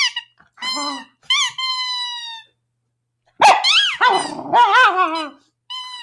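A dog's rubber squeaky toy being squeezed: short squeaks at the start and end and one long drawn-out squeak a second or so in. In the middle, for about two seconds, the dog barks and growls, louder than the squeaks.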